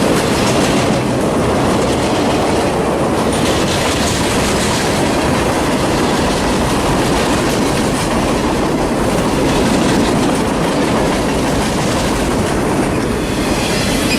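Freight train rolling past, a loud, steady rumble of railcar wheels on the rails.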